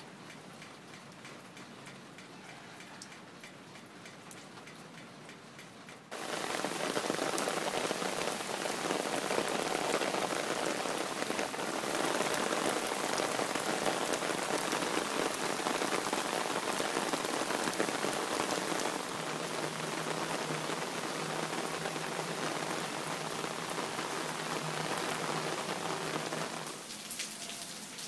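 Steady rain falling on wet paving and garden plants. It is faint at first, becomes much louder and heavier about six seconds in, and drops back somewhat near the end.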